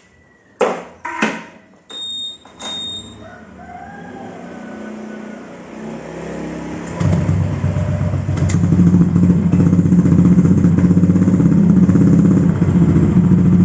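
A few clicks and two short high beeps, then a Honda Vario 150 scooter's single-cylinder engine starts and runs through an aftermarket racing silencer. About seven seconds in it gets much louder as the engine is revved and held up.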